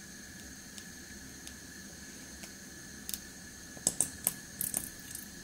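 A metal spoon scooping honey from a jar: scattered light clicks and taps, bunched about three to five seconds in, over a faint steady hum.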